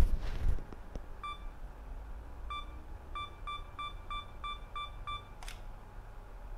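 Camera self-timer counting down: short electronic beeps about every second and a quarter, quickening to about three a second, then a brief shutter click about five and a half seconds in. A sharp click comes right at the start.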